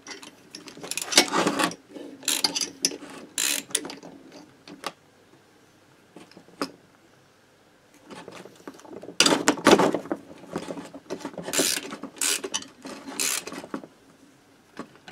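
Ratchet wrench clicking, with metal clinks from an eccentric stud extractor, as the cylinder studs are turned out of a Motobécane AV89 moped engine block. The clicking comes in two bursts with a quiet pause of a few seconds between them.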